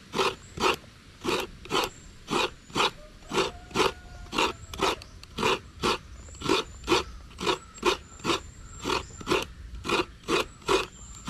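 Coconut being grated by hand on the serrated blade of a stool-mounted coconut grater: steady rasping strokes, about two a second.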